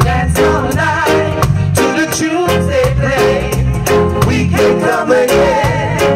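Live reggae band performing: several singers at once over electric guitar, bass and drums keeping a steady beat.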